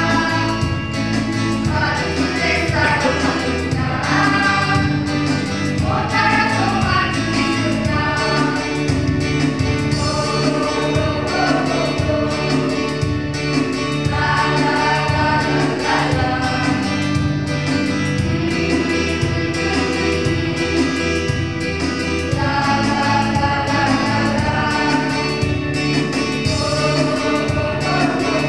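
Gospel song with a group of voices singing over a steady backing beat.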